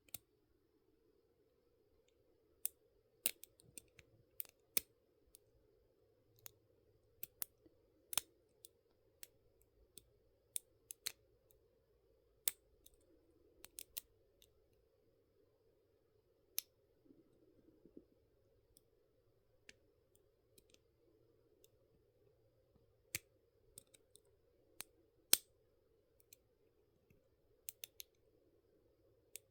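Lock picking: small, sharp metallic clicks of a pick and tension wrench working the pins of a pin tumbler lock, irregular, about one every second or so, over a faint steady hum.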